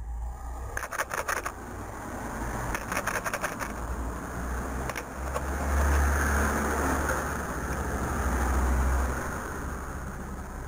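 A car passing along the road, its engine and tyre noise swelling to its loudest in the second half and then fading. A few sharp taps sound about one, three and five seconds in.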